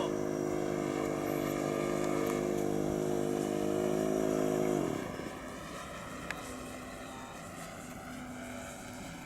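Radio-controlled P-51 Mustang model with an onboard sound-effects unit playing a steady simulated piston-engine drone over its propeller noise. It holds loud and even for about five seconds, then drops off to a fainter drone.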